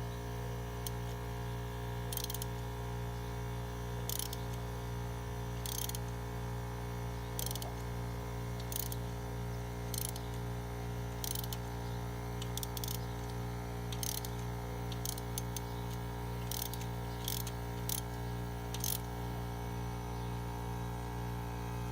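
Short, high-pitched metallic ratcheting rasps at irregular intervals from hand tools working on an LS cylinder head's valve train, over a steady electrical hum.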